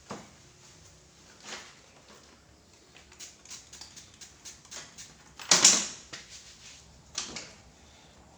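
Scattered knocks and rustles of hands working on a patient's body during a chiropractic-style adjustment, with a run of light taps in the middle, one louder thump about five and a half seconds in, and another a little later.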